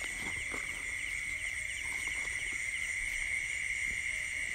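Night chorus of crickets and other insects: a steady high-pitched trill, with a shorter chirp repeating a few times a second above it.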